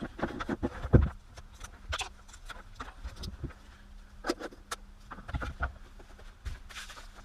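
Irregular clicks, taps and knocks from handling a rotary multi-tool and its attachments, with the loudest knock about a second in. The tool's motor is not running.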